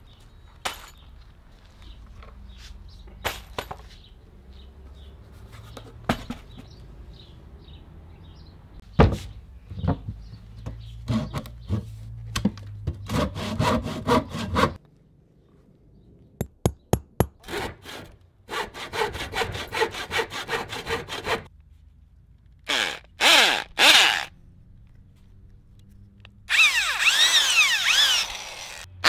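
Hand saw cutting through an old wooden beam in rhythmic back-and-forth strokes, with scattered knocks of handling wood and tools before it. Near the end a power drill whines as it spins up and bores into a wooden block.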